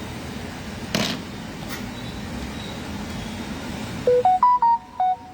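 A steady low background hum with a single click about a second in. Near the end comes a short tune of loud electronic beeps stepping up and down in pitch, like a phone's ringtone or jingle.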